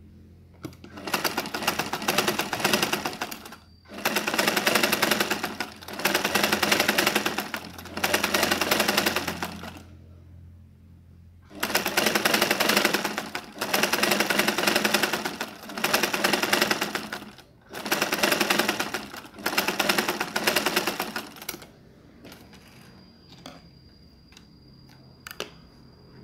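Black domestic sewing machine stitching fabric in repeated runs of about two seconds each, with brief pauses between them. It stops near the end, leaving a few faint clicks.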